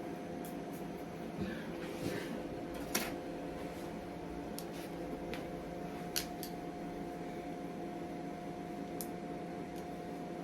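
A steady hum with a few short, sharp clicks, the clearest about three seconds and six seconds in.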